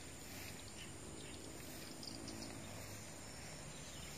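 Faint, steady high-pitched calling of insects over low background noise.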